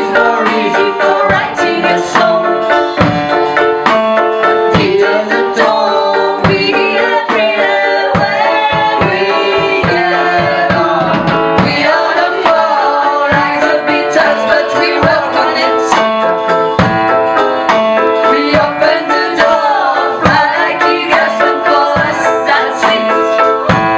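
Live band performing a pop-rock song: lead and backing singing over a drum kit, electric guitars and keyboard, with a steady beat.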